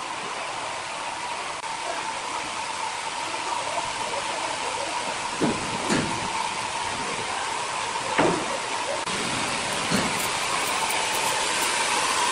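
Large horizontal band sawmill running with its blade cutting through a big log: a steady hiss with a held, even tone that grows a little louder toward the end. Several short wooden knocks come about halfway through as a cut board is handled.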